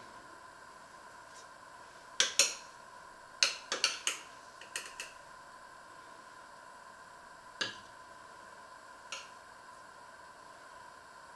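Metal spoon and ladle clinking against a steel pot and a china plate while rice is dished out: a cluster of sharp clinks in the first half, then two single ones later, over a steady faint hum.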